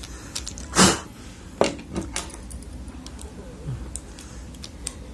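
Small metal clicks and scrapes from a screwdriver working inside a fishing reel to clean out buildup: a short scrape about a second in, then a few sharp clicks.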